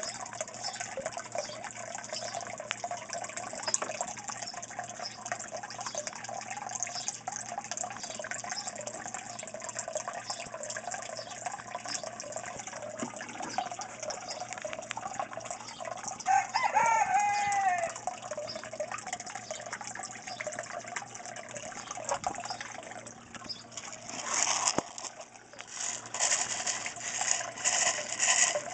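Water steadily splashing and trickling into the aquaponics fish tank from the grow bed's return. A single short pitched call sounds about sixteen seconds in, and the splashing gets louder and choppier near the end.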